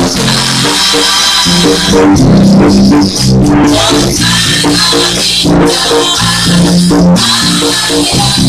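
Loud live band music, played without singing: a bass line stepping quickly from note to note under keyboard or guitar chords, with drums.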